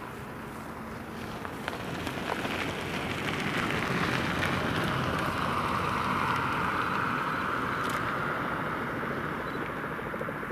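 Quest Kodiak 100's Pratt & Whitney PT6A turboprop engine and propeller running as the aircraft taxis past, a steady turbine whine over propeller noise. It grows louder over the first few seconds, then eases slightly, the whine dipping a little in pitch.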